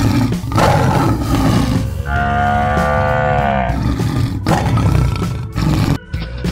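Lion roar sound effects, broken by a long cow moo about two seconds in that bends down in pitch at its end, then another roar, over steady background music.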